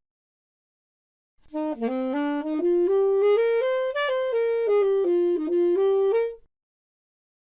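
A solo wind instrument plays a short melody of quick, separate notes that climbs in pitch and then steps back down, lasting about five seconds and starting after a second or so of silence.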